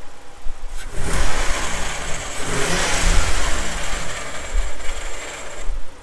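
Dodge Stealth's 3.0 V6 running while the starter grinds harshly on the flywheel, a loud grinding that starts suddenly about a second in and stops just before the end, with the engine's pitch rising and falling under it. It is the sign of a faulty starter that engages when it shouldn't.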